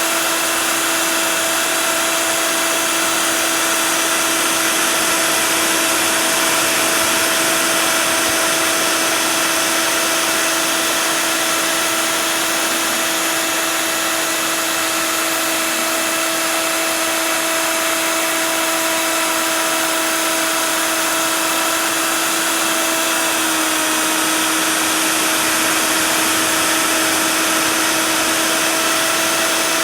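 CNC router spindle running steadily at high speed, cutting expanded PVC: a constant whine over a broad hiss. Late on, the pitch dips slightly and then holds.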